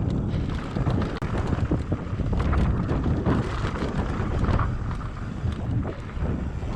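Wind buffeting the camera microphone as a Giant Glory downhill mountain bike rides fast down a dirt trail, with tyre rumble and irregular knocks and rattles from the bumps.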